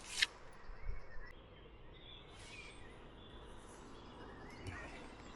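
Quiet outdoor ambience with faint bird chirps, and one short sharp click just after the start.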